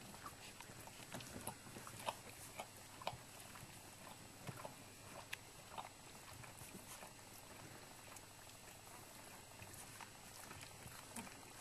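Faint wet licking and smacking from a flat-coated retriever mother cleaning her newborn puppies: a scatter of short clicks, thicker in the first half.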